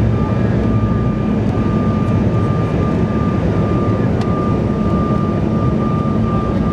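Steady cabin noise of a Bombardier CRJ700: its rear-mounted turbofan engines and the rush of air around the fuselage, with a steady high whine running through it.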